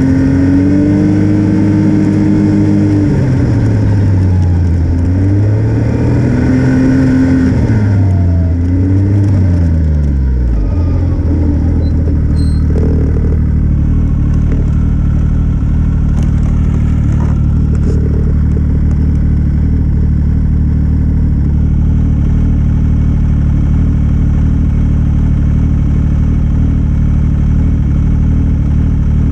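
Snowmobile engine running under way, its pitch rising and falling as the throttle changes, then dropping about ten seconds in to a steady idle as the sled stops and sits.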